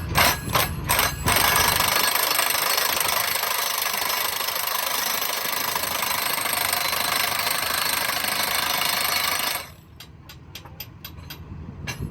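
Power impact wrench hammering on the bolts of a railroad diamond crossing: a few sharp bangs, then a steady buzzing run of about eight seconds that cuts off abruptly, followed by scattered clicks of steel on steel.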